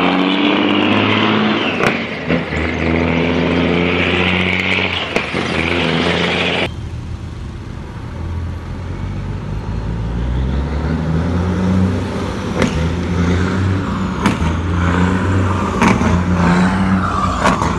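Heavy dump truck's diesel engine working hard as the loaded truck pulls away, black smoke pouring from its exhaust stacks. It cuts off abruptly about a third of the way through, and a second truck's diesel engine takes over, its revs rising, with a few sharp clicks near the end.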